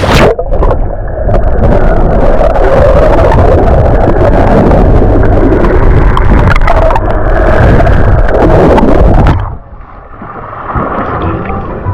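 Water churning and gurgling loudly in a boat's live bait well, close to the microphone; it drops off sharply about nine and a half seconds in.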